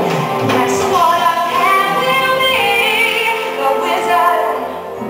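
A woman singing a musical-theatre solo in a live stage performance, holding long notes over an orchestra, with the melody stepping up in pitch a couple of seconds in. Near the end her voice drops away and the orchestra holds on.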